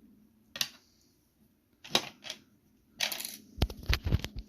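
Handling noises on a work surface: a few sharp clicks and a short scrape, then several low thumps near the end, as the reassembled laptop and tools are moved and set down.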